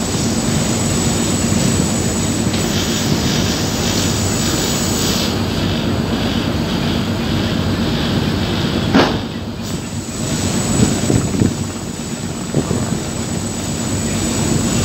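Steady drone of a river passenger launch's engine with wind rushing over the microphone, and a brief bump about nine seconds in.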